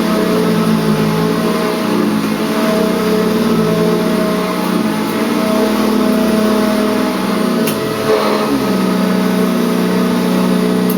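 Eureka ESP vacuum cleaner's motor running steadily, its pitch wavering slightly, with a single sharp click about eight seconds in.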